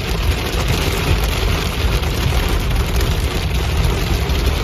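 Hail and heavy rain hitting a car's roof and windshield, heard from inside the cabin: a dense, steady clatter of many small impacts over a low rumble.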